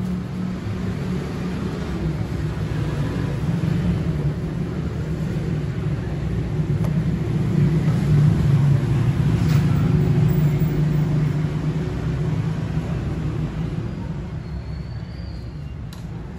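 Steady low rumble of motor-vehicle engines, growing louder toward the middle and easing off near the end.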